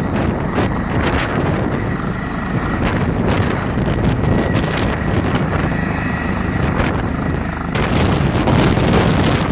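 Airbus H145M twin-turbine helicopter hovering low on its landing approach: steady rotor noise with a high, constant turbine whine. It grows louder toward the end as the helicopter comes closer.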